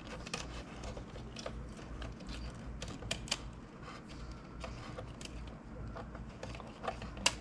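Hands working the LCD screen loose inside a Photon Mono resin 3D printer: irregular small clicks and knocks of the parts being pushed and handled. A louder pair of clicks comes about three seconds in and sharp clicks come near the end, over a steady low hum.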